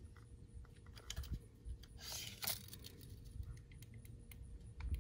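Light clicks and ticks of a plastic pool-filter end cap being handled and measured with a pencil, with a brief rustle about two seconds in and a faint steady hum underneath.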